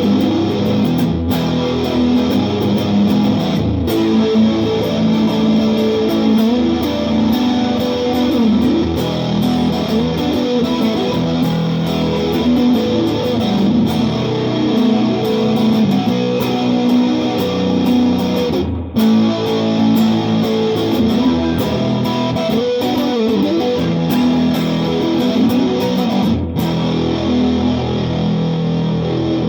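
Fender Telecaster electric guitar played continuously through a Vox AC15 amp with an effects pedal on, a stream of picked notes and chords with two short breaks in the playing.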